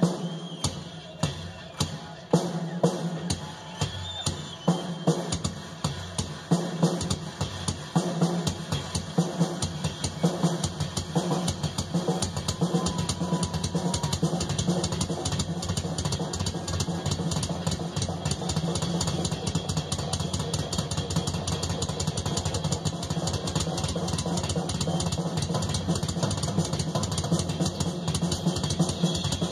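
Rock drum kit played as a live drum solo: loud separate hits about once or twice a second at first, building after about ten seconds into a fast, continuous stream of drum strokes and rolls.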